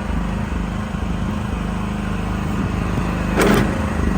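Mini excavator's industrial Briggs & Stratton engine running under load while the hydraulics move the machine, the engine note shifting with the work. A short, sharp noise cuts in about three and a half seconds in.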